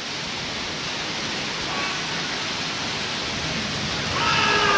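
Heavy storm rain and wind, a steady even hiss.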